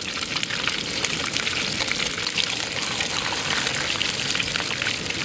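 Hot oil sizzling and crackling steadily as whole masala-coated fish deep-fry in it.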